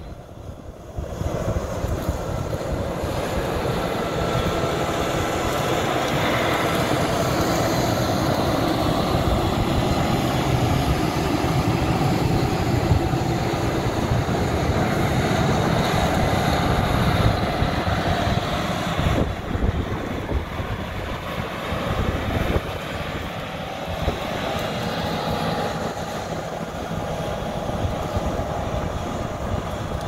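Large diesel farm machinery running steadily: a New Holland CR8.90 combine and a John Deere 9470R four-wheel-drive tractor pulling a grain cart. The engine drone changes abruptly about two-thirds of the way through.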